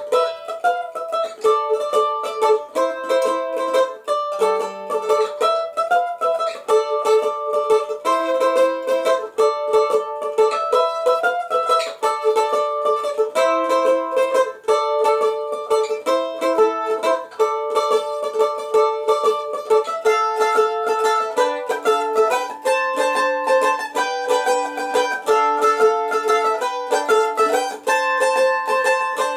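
F-style mandolin played with a pick: a fast melody of single picked notes, its phrases repeating every couple of seconds.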